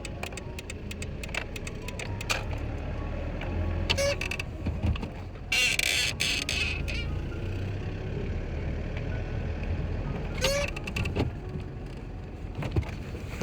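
Mitsubishi Canter truck engine idling as a steady low rumble in the cab, with scattered clicks and two short squeaks, about four seconds in and again near the end. These are typical of the abnormal creak ('嘎嘎') from the clutch pedal linkage. A brief hiss comes in the middle.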